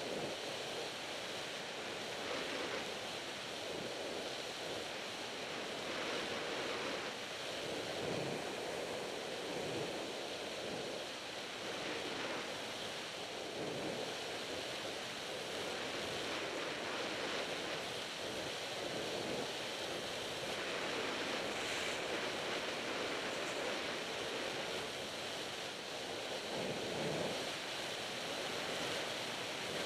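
Skis sliding over hard-packed groomed snow: a steady rushing hiss that swells and eases every few seconds. Wind buffets the action camera's microphone.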